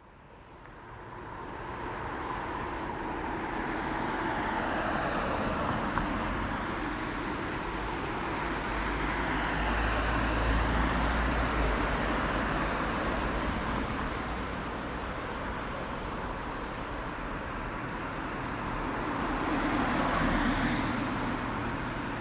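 Road traffic noise that fades in, then swells as vehicles pass, loudest about halfway through and again near the end.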